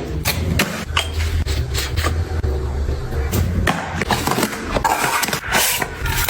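Items being handled and set down: a string of sharp clicks, taps and knocks with some scraping. Under them a low hum runs for the first half and then stops.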